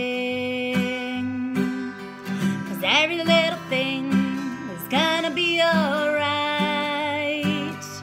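Woman singing with long, wavering held notes over a steadily strummed acoustic guitar.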